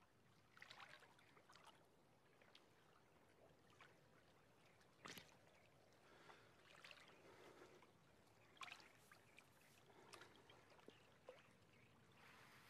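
Faint sloshing and small splashes of water as men wade chest-deep, with a few sharper splashes, the clearest about five seconds in.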